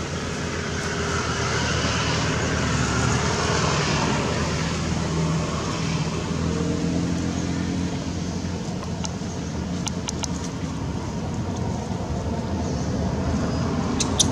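Steady rumble of road traffic, a motor vehicle's engine hum running throughout, with a few sharp clicks in the second half.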